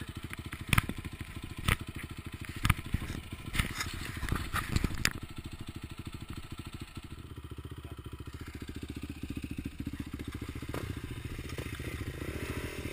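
Quad bike's single-cylinder engine idling with a steady, rapid pulse. In the first five seconds a gloved hand wipes the camera lens, rubbing and knocking against it several times.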